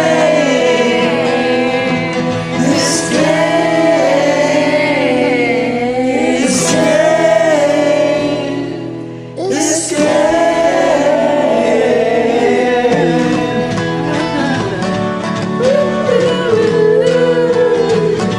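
Music: a voice singing long held, wavering notes over an acoustic guitar backing track, dipping briefly about halfway through.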